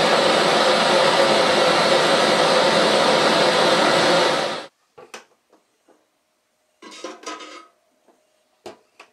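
Hot steel blade quenched in oil in a metal can, the oil hissing and burning with a loud, steady noise that cuts off suddenly about four and a half seconds in. After that come a few light metal clanks and a sharp click as the steel door of a small heat-treating oven is handled and opened.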